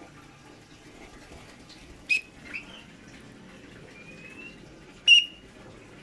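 Javan myna giving two short, sharp squeaky calls, about two and five seconds in, with a softer note just after the first and a thin rising whistle before the second.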